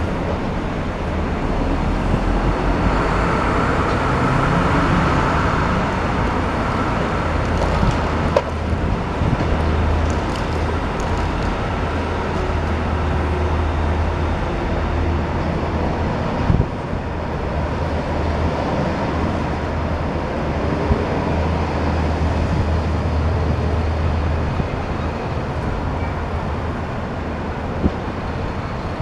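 Long-reach demolition excavator's diesel engine running steadily with a low hum, with a few sharp knocks from the work, one about eight seconds in, one near the middle and one near the end.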